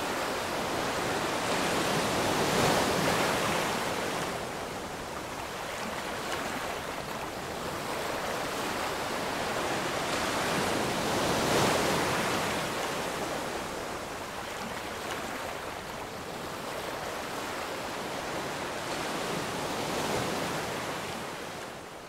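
Rushing sound of ocean waves, each swell building and falling away about every eight or nine seconds, fading out at the end.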